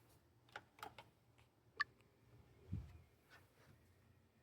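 Near silence: a few faint, scattered clicks and taps, with a soft low thump nearly three seconds in.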